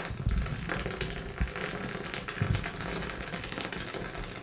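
Hot milk poured from a height in a thin, steady stream into a cup of coffee, splashing on the surface to raise froth.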